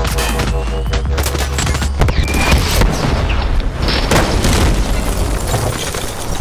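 Designed film soundtrack of a gunfight: rifle shots and heavy booming impacts over a continuous deep rumble, with the loudest strikes about two and about four seconds in.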